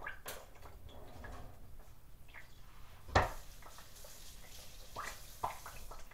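Hot frying oil in a lidded pot popping: scattered sharp pops, the loudest a little past three seconds in, followed by a faint hiss.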